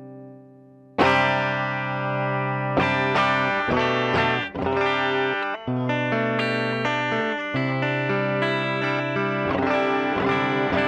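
Electric guitar played through a pedalboard of effects pedals: a chord fades out, then about a second in a new chord is struck and several ringing chords follow, changing every second or so.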